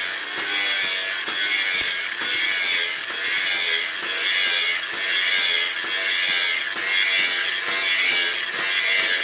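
Angle grinder with an abrasive disc grinding the flat of a steel cleaver blade forged from a leaf spring. The grinding hiss is steady and swells and eases every second or so as the disc is worked across the steel.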